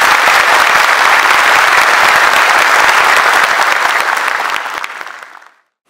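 Audience applauding, loud and steady, dying away near the end.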